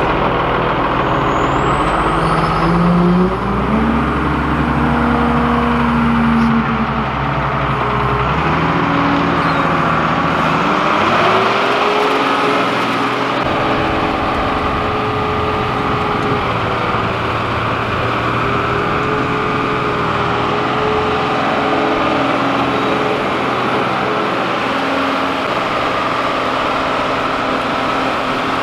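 Dresser wheel loader's diesel engine running as the loader drives, its pitch climbing about two to four seconds in, dipping around ten seconds, then holding steady.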